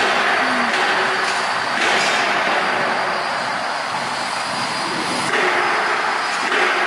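Coil-winding machinery running in a factory workshop: a steady rushing noise with a faint hum, shifting in level a couple of times.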